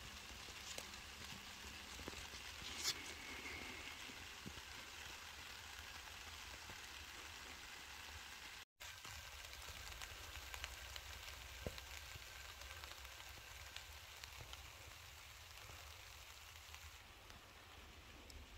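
Light rain and mist falling on a mylar emergency-blanket shelter: a faint steady hiss with occasional single drop ticks. The sound cuts out for an instant about nine seconds in.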